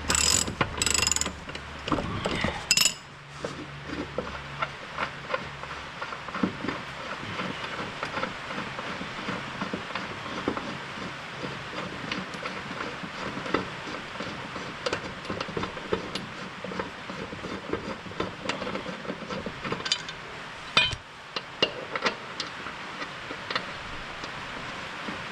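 A socket ratchet clicking through repeated strokes as a bolt is worked loose on the mower, with a few loud metal clanks in the first few seconds and another near the end.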